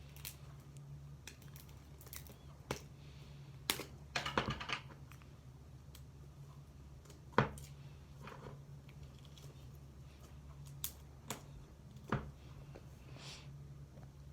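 Fluffy slime and glitter slime being kneaded and stretched by hand, giving off irregular sticky clicks and little pops, with a crackling run about four seconds in and a sharper snap about seven seconds in. A steady low hum runs underneath.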